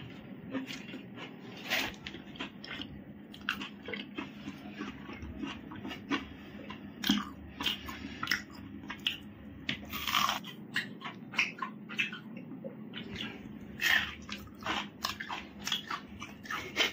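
A person chewing and biting a mouthful of egg omelette close to a clip-on microphone: irregular wet mouth clicks and smacks, some sharper than others.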